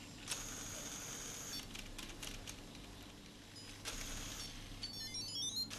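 Scattered small clicks and a faint high steady tone, then, near the end, a quick run of electronic beeps stepping up and down in pitch from the LEGO Mindstorms robot's programmable bricks as the dice number is passed on.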